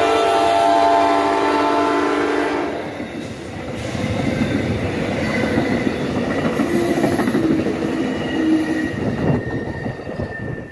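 Amtrak passenger train passing at speed: the GE Genesis locomotive's horn sounds a held chord that cuts off about two and a half seconds in. After that comes the steady rush and clatter of the passenger cars' wheels rolling by.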